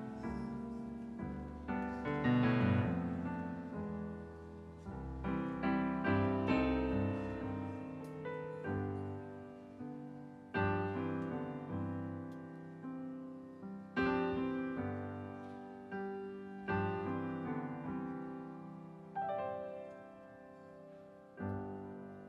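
Grand piano playing a slow introduction of chords, each struck and left to ring and fade.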